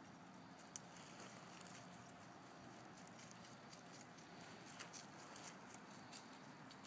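Near silence with faint, scattered rustling and light ticks. The sharpest tick comes a little under a second in, and a few more come near the five-second mark.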